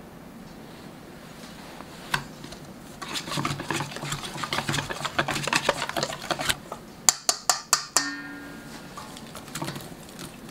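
A spoon rapidly stirring thin flour batter in a stainless steel mixing bowl, clicking and scraping against the metal. Just past the middle come four sharp metal taps, and the bowl rings briefly after them.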